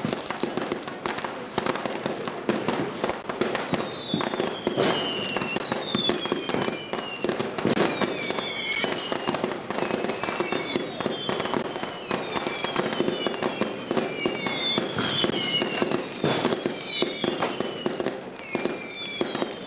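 Fireworks going off close by: a dense, continuous crackling and popping of bangs. From about four seconds in come repeated falling whistles from whistling fireworks.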